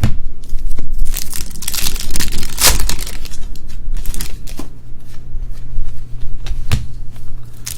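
Trading card pack wrappers crinkling and tearing as packs are ripped open, with a few sharp knocks among them.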